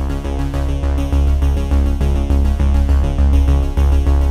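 Electronic background music with a heavy bass line changing notes in a steady rhythm.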